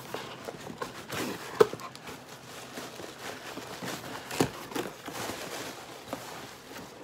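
Cardboard shipping box being opened by hand: flaps pulled open and folded back, with rustling and scraping of cardboard and a few sharp knocks, the loudest about a second and a half in and another a little past four seconds.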